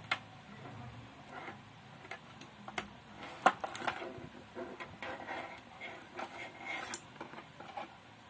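Handling noise from a power supply and its packaging being unboxed: irregular clicks, light knocks and rustling, with the sharpest clicks about three and a half seconds and seven seconds in.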